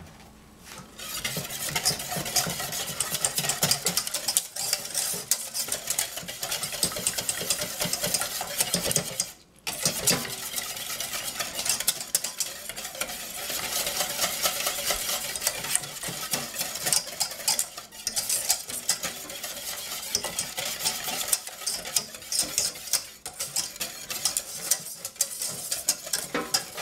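Wire whisk beating crepe batter in a metal saucepan: a fast, continuous scraping and clinking of the wires against the pan as milk is blended into the flour. It starts about a second in and stops briefly about a third of the way through.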